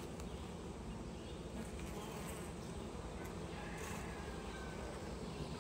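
Honeybees buzzing around an open hive whose frames are being lifted out for inspection: a steady, even hum.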